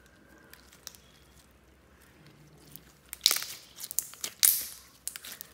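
Hands squeezing and kneading a lump of glittery slime, its sticky mass crackling and popping as trapped air squelches out. After a quiet stretch with a few faint clicks, the crackling starts loudly about three seconds in and comes in several bursts.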